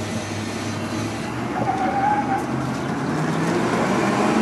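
The Ford 460 big-block V8 of a 1991 F-250 pickup pulls the truck along, heard from inside the cab. It grows steadily louder as the truck accelerates.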